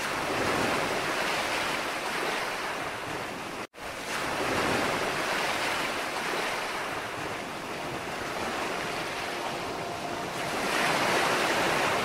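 Ocean surf: small waves breaking and washing up a beach, an even rushing that swells at the start and again near the end. About four seconds in the sound cuts out for an instant, like a splice in the track.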